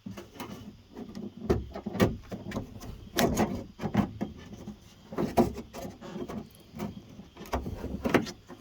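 Irregular clicks, knocks and scraping as a clipped window felt strip is worked and pressed into the sheet-metal door of a 1992 Dodge D150 pickup, its clips snapping into the door's holes.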